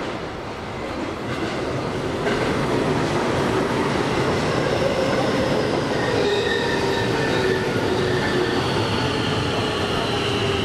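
Electric commuter train pulling into the neighbouring track, growing louder about two seconds in: wheel rumble with a squeal and a whine that falls slowly in pitch as it brakes.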